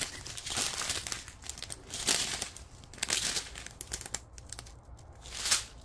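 Small clear plastic bags of diamond-painting drills crinkling as they are handled and swapped between the hands, in short irregular rustles.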